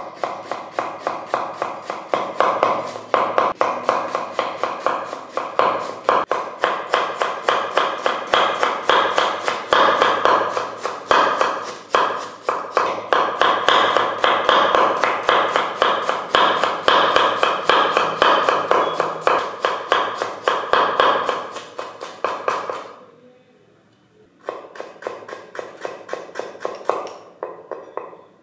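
Knife chopping a red onion on a wooden cutting board: quick, steady chops, several a second. After a short break near the end, the chopping starts again.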